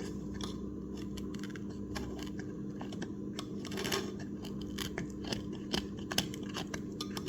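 Scalpel blade scraping old foam surround residue off the rim of a McIntosh 6-inch speaker's plastic cone: a run of small, irregular scratches and ticks over a steady low hum. The blade is getting blunt.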